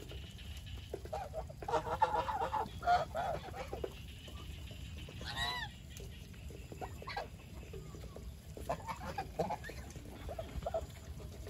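Domestic geese honking, a cluster of calls about two to four seconds in, a single call near the middle and more near the end.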